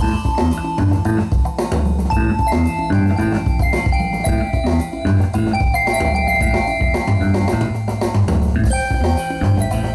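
Band music playing: a drum kit keeping a steady beat under a bass line and sustained melody notes.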